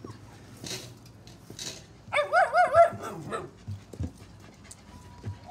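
Husky puppies vocalising: a short burst of high-pitched, wavering yips and whines about two seconds in.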